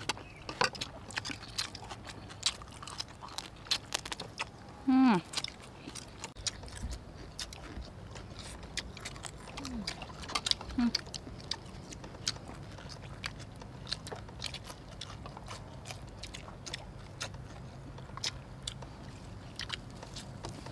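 People eating with their hands: scattered smacks, clicks and crunches of biting and chewing, with a few short falling vocal sounds of appreciation, the clearest about five seconds in.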